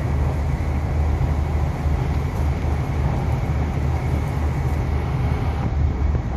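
Steady running noise of an MTR East Rail Line R-Train heard from inside the car while it travels at speed: an even low rumble with a hiss above it.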